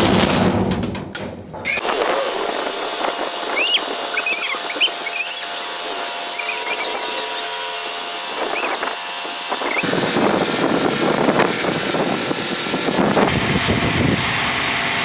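Strong sandstorm wind rushing steadily, with a few faint high squeaks in its first half. From about ten seconds in, deep buffeting of the wind on the microphone joins in.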